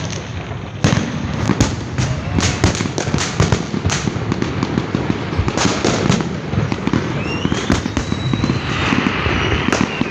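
Fireworks going off in a dense, continuous barrage of bangs and crackles. About seven seconds in, a whistle rises in pitch over the bangs.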